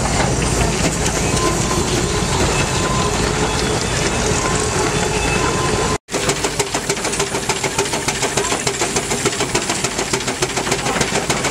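Heavy machinery running at a steady, dense clatter. After a cut about six seconds in, an engine runs with a fast, even beat.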